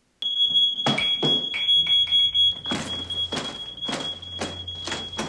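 Smoke alarm sounding a continuous shrill high tone. Over it come repeated hard knocks against a wall, roughly two a second.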